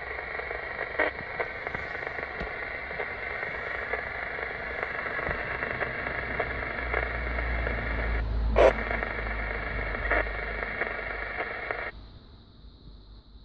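Two-way radio receiver hiss: steady static from the transceiver's speaker on an empty channel where no station answers, with a few sharp clicks, the loudest about two-thirds through. The hiss cuts off abruptly near the end, as when the squelch closes.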